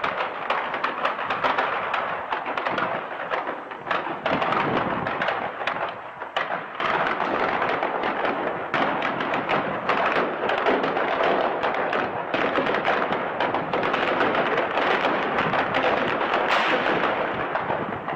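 Ammunition cooking off inside a burning tank: a dense, continuous crackling and popping over a steady rushing noise, with no pause.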